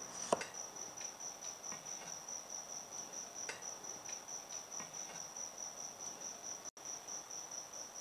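Cleaver chopping small cucumbers on a wooden chopping board: one firm chop just after the start, then a few lighter, scattered knocks of the blade on the board. A steady, high, pulsing trill runs underneath throughout.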